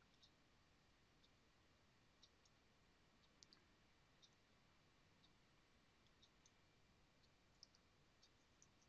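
Near silence with faint, scattered clicks of a computer mouse and keyboard, about fifteen in all, coming closer together near the end.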